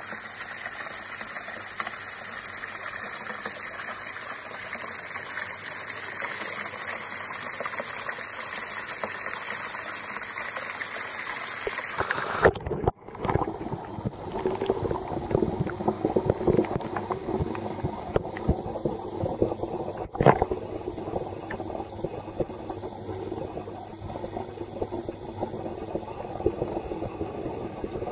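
Garden pond water trickling and splashing as an even hiss, then about twelve seconds in the sound turns dull and muffled as it is heard from under the water, with a low churning rumble and a couple of sharp knocks.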